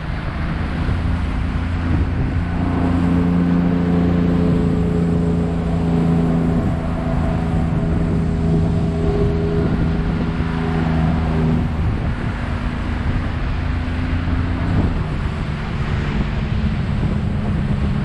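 Outboard motor running as the aluminium boat crosses choppy water, with wind buffeting the microphone and water rushing and slapping along the hull. The engine's note holds steady from a few seconds in, drops out of the mix about two-thirds through, and returns at a lower pitch near the end.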